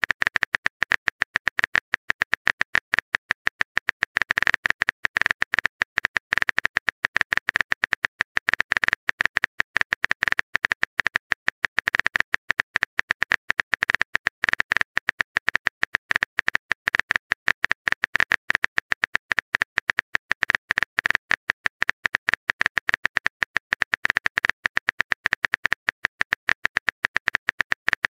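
Rapid keyboard-typing clicks from a texting app's sound effect, ticking on unbroken at several a second as a message is typed out letter by letter.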